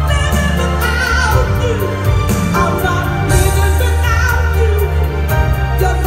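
Live R&B performance: a woman singing into a microphone over a band with strong bass and drums.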